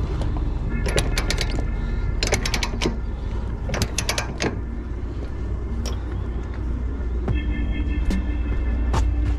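Steel load-securing chain and a lever load binder clinking against each other and the wooden trailer deck as the chain is hooked up, in several short bursts of rattling links, over a steady low rumble.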